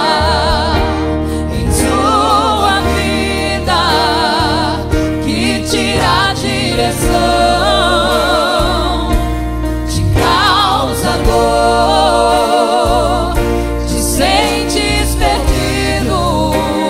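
A gospel song sung by a mixed group of women and men, with vibrato on the held notes, over keyboard and bass accompaniment.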